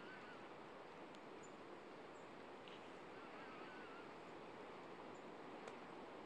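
Near silence: faint steady outdoor background noise, with a few faint, distant bird calls near the start and around the middle.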